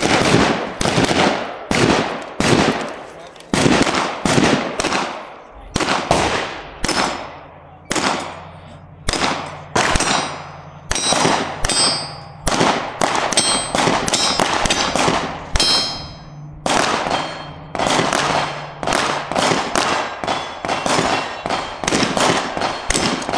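Rapid gunfire: a steady string of single shots, about two a second, each a sharp crack that trails off in echo, with a brief pause about two-thirds of the way through.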